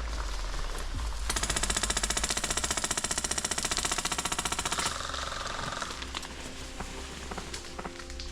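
Airsoft gun firing a long full-auto burst, a fast even rattle of about 15 to 20 shots a second, lasting about three and a half seconds and starting about a second in.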